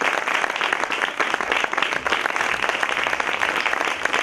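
Theatre audience applauding during a curtain call: dense, steady clapping from many hands.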